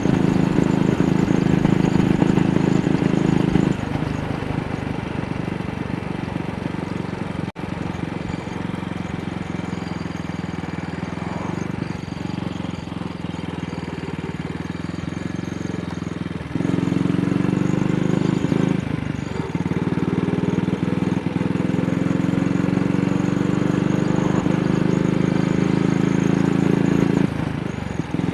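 AJS Model 8 single-cylinder motorcycle engine running on the road while misfiring. It pulls loudly for the first few seconds, then drops back for about twelve seconds. It pulls up again with its note rising through the gears, briefly backing off near the end. A single sharp click comes about seven seconds in.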